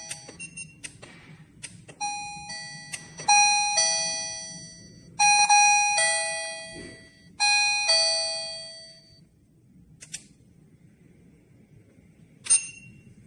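Wireless doorbell receiver playing its electronic ding-dong chime in four short runs of bell-like notes, each dying away, the later ones louder than the first, as its volume button is pressed. The chimes stop a little past halfway, and a couple of short sharp sounds come near the end.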